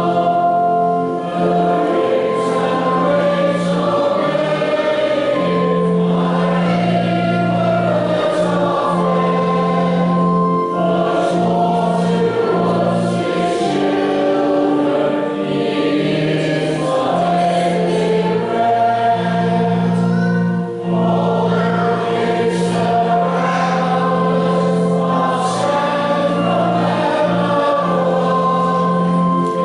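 Choir singing a Christian hymn or worship song over accompaniment with long held bass notes.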